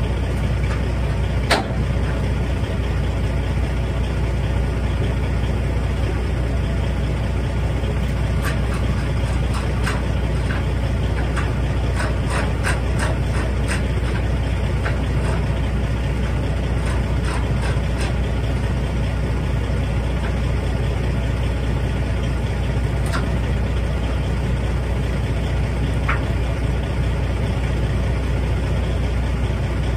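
Log truck's diesel engine idling steadily, with scattered short metallic clicks and clinks, most of them between about 8 and 18 seconds in.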